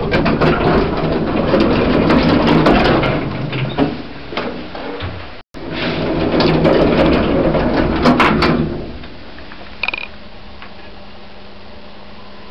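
1980s Stannah lift's doors and machinery in motion: a loud rattling, clicking mechanical noise in two long stretches, then a short high beep about ten seconds in, followed by a low steady hum.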